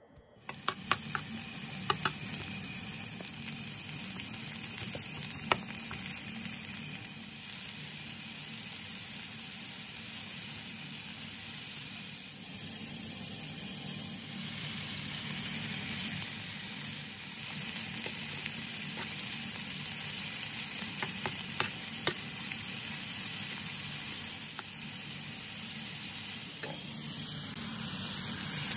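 Pork and sliced onion sizzling steadily in hot oil in a pan, with a few sharp clicks of a cooking utensil against the pan. The sizzle starts suddenly about half a second in.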